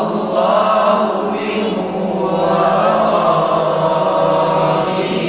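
A group of voices reciting a Quranic verse together in a drawn-out chant, repeating the verse just recited to them in call-and-response memorisation (talaqi).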